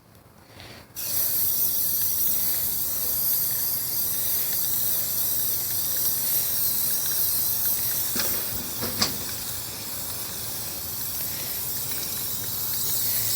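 Primer being sprayed onto a truck's bodywork: a steady spray hiss that starts about a second in and keeps going, with a couple of light ticks about eight and nine seconds in.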